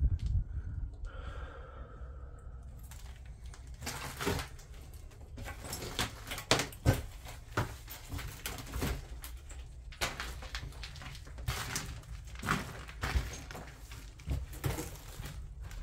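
Footsteps and knocks inside an old house: irregular clicks and thuds, the sharpest a little before and around seven seconds in, over a steady low rumble.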